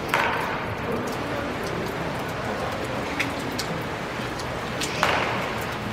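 Baseball bats hitting balls in indoor batting cages: two sharp cracks that ring through the hall, one just after the start and one about five seconds in, with a few fainter knocks between, over a steady background hum.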